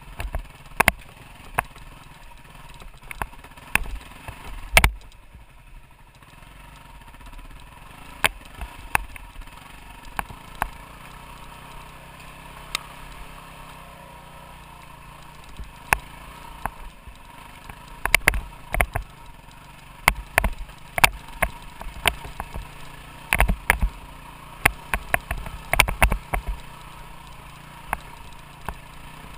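Off-road motorcycle engine running steadily, with frequent sharp knocks and clatter from the ride over rough ground, thickest in the last third.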